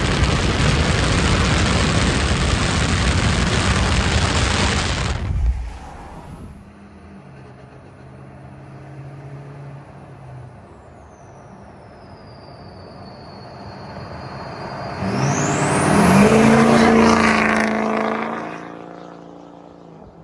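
Built Ford 6.0 Powerstroke diesel with an aftermarket KC turbo: at first a loud rush of engine, turbo and wind at full throttle, which cuts off suddenly about five seconds in. Then the truck is heard coming from a distance with a high turbo whistle, and about fifteen seconds in it accelerates hard past, the turbo whistle climbing steeply like a jet before the sound fades away.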